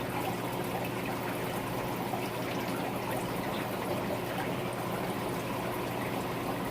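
Steady trickling and splashing of aquarium water running over a constant electrical hum from the tanks' filters and pumps.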